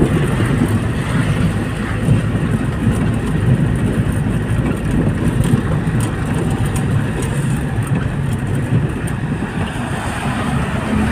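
Steady low engine and road rumble of a moving road vehicle, heard from inside the cabin.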